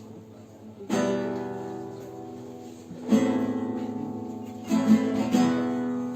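Acoustic guitar playing slow strummed chords, each struck and left to ring out, about one every two seconds, then two closer together near the end: the opening of a song before the singing starts.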